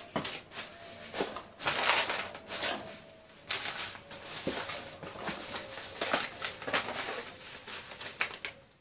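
Plastic packaging crinkling and rustling in irregular bursts as a circuit board is unpacked by hand, with a few light clicks.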